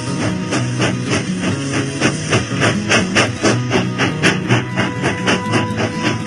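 Background music with a quick steady beat over a changing bass line.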